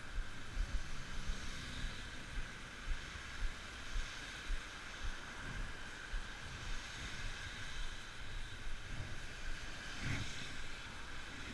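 Wind buffeting the microphone in irregular low thumps over a steady outdoor hiss.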